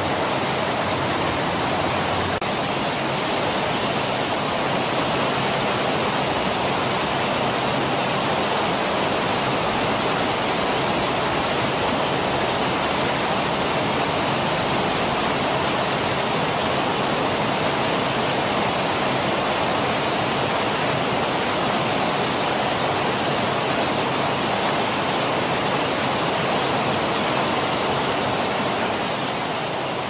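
Small waterfall cascading over rocks in a mountain stream: a steady, even rush of falling water. It begins to fade near the end.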